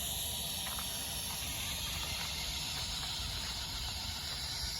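Well-drilling rig running steadily, heard as an even hiss over a low rumble.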